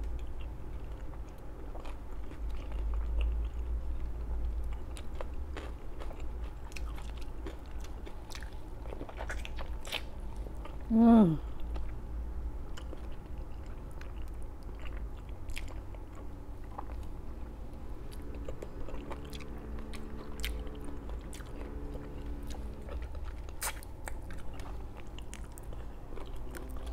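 Close-miked chewing, biting and crunching of food eaten by hand, with many small wet clicks and crackles. About eleven seconds in comes a short voiced sound that falls in pitch, the loudest moment.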